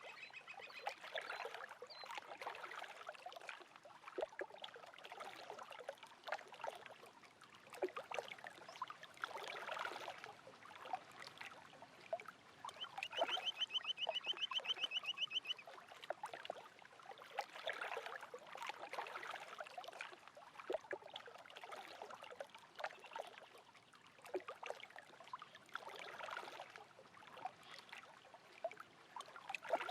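Small lake waves lapping and splashing, swelling roughly every eight seconds. Midway through, a bird gives one rapid high trill lasting about two and a half seconds.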